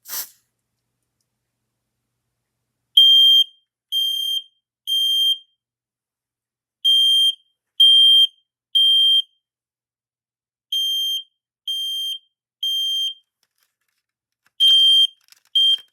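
Smoke alarm's piezo horn sounding in the temporal-three evacuation pattern, triggered by a smoke test: a shrill beep of about half a second, three in a row with a pause between groups. Three full groups sound, and a fourth breaks off after two beeps near the end.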